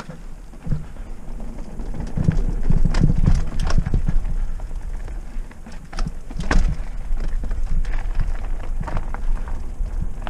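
Trek Roscoe 6 hardtail mountain bike rattling and clattering as it is ridden over a wooden boardwalk and rough dirt trail, with many sharp irregular knocks, over a deep steady rumble of wind on the camera microphone. The noise jumps up at the start and grows louder from about two seconds in.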